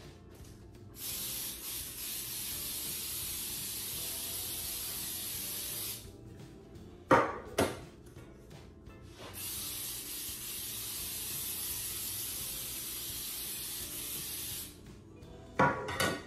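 Aerosol can of Baker's Joy baking spray hissing in two long sprays of about five seconds each, coating cake pans. Between the sprays come two sharp knocks, and there are more knocks near the end.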